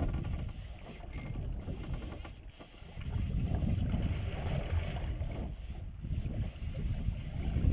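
Wind buffeting the microphone in gusts, with sea water lapping against a small boat's hull.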